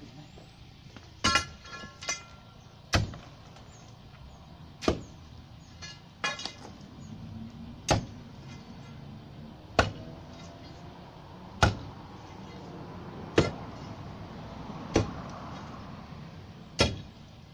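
Long steel digging bar striking the concrete and rubble around the base of a hardwood pole, breaking the concrete up to free the pole. About eleven sharp blows, one every second and a half to two seconds, the first few with a short metallic ring.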